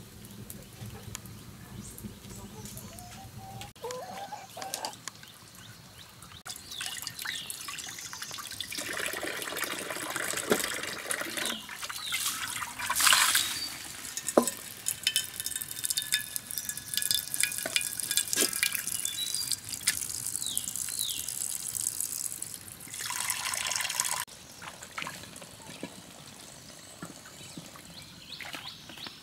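Water splashing and trickling, with scattered knocks and clicks, louder through the middle stretch.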